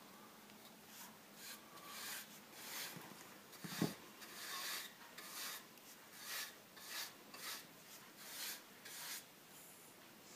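A flat paintbrush stroking thick white acrylic paint onto bare, new pine crate slats: a dozen or so short, faint rasping brush strokes, with one light knock about four seconds in.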